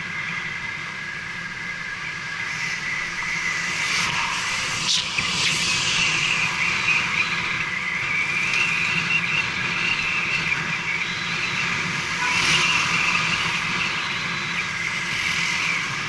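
Wind and road rush on a helmet-mounted action camera as a bicycle rides along a street. It grows louder about two seconds in, with a sharp click about five seconds in.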